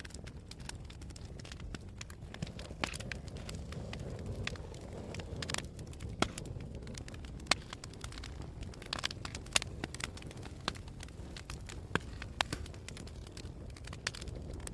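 Wood fire burning in a fireplace: a steady low rumble of the flames with irregular sharp crackles and pops of the burning wood.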